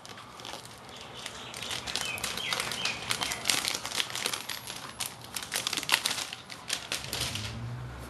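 Thin plastic protective sheet crinkling and crackling, handled and pulled away from a new laptop, in a dense run of small irregular crackles that stops shortly before the end.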